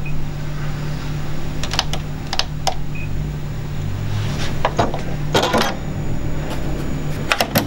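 Scattered small clicks and taps from the Juki HZL-NX7 sewing machine as the needle is set to its highest position and the automatic needle threader is worked, over a low steady hum.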